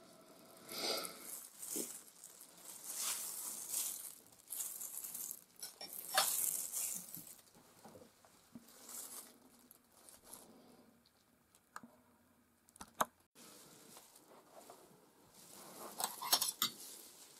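Metal palette knife scraping and spreading oil paint in a string of irregular strokes, with a few sharp clicks between them.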